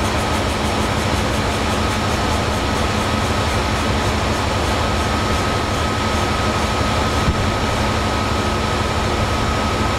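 Air compressor of a GE P42DC diesel locomotive running with the engine, a steady mechanical noise with a constant high whine.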